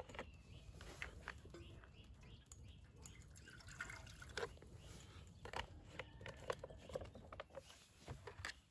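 Quiet, irregular small clicks and knocks, with a little water dripping and pouring into a container.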